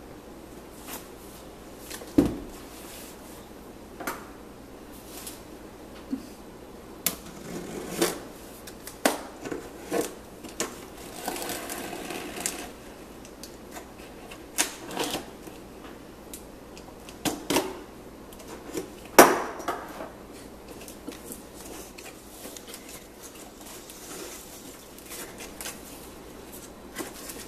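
Cardboard laptop box being handled and opened by hand: scattered taps and knocks on the cardboard, with a stretch of scraping and rustling midway. Two knocks stand out as the loudest, one about two seconds in and one about two-thirds of the way through.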